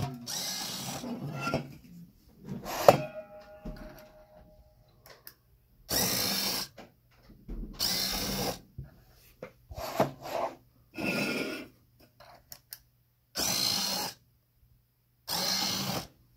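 Small electric motor of a 3D-printed can dispenser turning its drum in six short runs of under a second each, about two seconds apart. Earlier, an aluminium can is handled into the machine, with a sharp clink that rings briefly about three seconds in.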